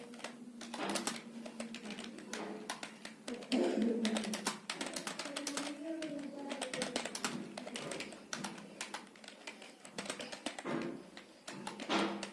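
Typing on a computer keyboard: quick, irregular key clicks, several a second, at a touch-typing pace during a typing test.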